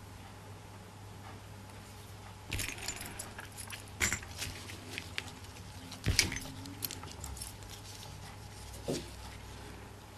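Small metal split rings and snap clasps clinking and jingling as they are handled on a table, in a few scattered bursts; the loudest comes about six seconds in.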